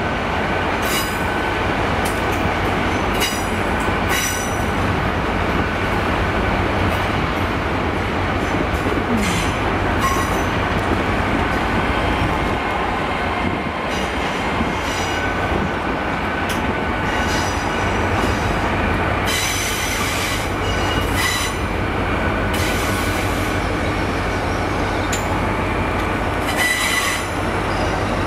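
GWR Hitachi Class 800 train, unit 800 302, running in over the pointwork: a steady loud train noise with wheel squeal and sharp clicks every few seconds.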